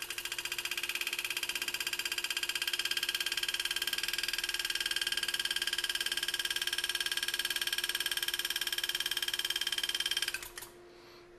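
Enset pneumatic engraving handpiece driving a graver through metal, a rapid, even buzzing pulse as the flare-cut line is engraved. It stops suddenly about ten seconds in.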